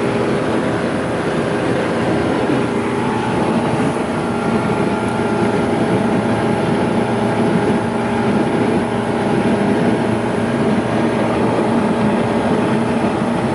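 Motorboat engine running steadily under way, a constant drone.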